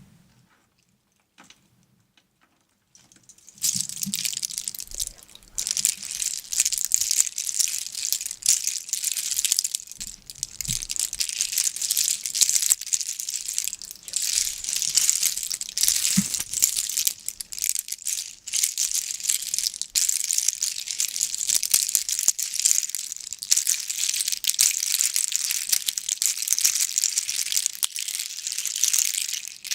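Dense, continuous crinkling and crackling, starting about three and a half seconds in after near quiet.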